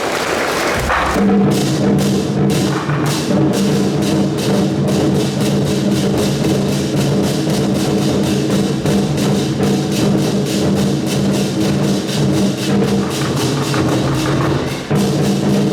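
Procession music: a fast, even drum and cymbal beat over a held, low-pitched melody, starting about a second in.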